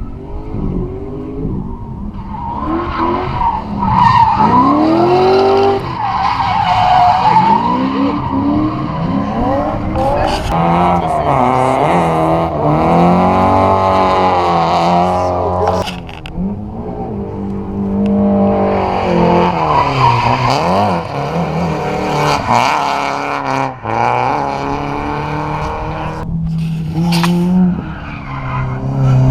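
Drift cars' engines revving hard, pitch rising and falling again and again, with tires skidding and squealing as the cars slide sideways.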